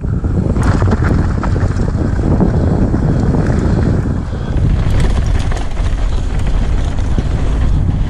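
Wind buffeting a camera microphone on a mountain bike descending a dirt trail, a steady low rumble, with tyre and frame noise and scattered sharp clicks and rattles as the bike runs over bumps.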